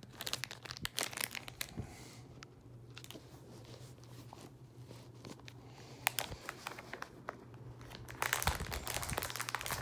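Plastic toy-figure baggie being crinkled and torn open by hand: irregular crackles and rustles, growing louder and denser about eight seconds in.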